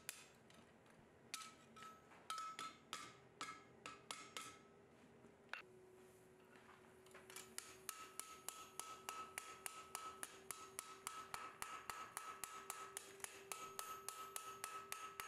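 Faint hammer blows on a hot steel ring lying on an anvil, forge-welding the ring's joint. There are scattered strikes at first, then a short pause, then rapid steady hammering at about four blows a second with a steady metallic ring.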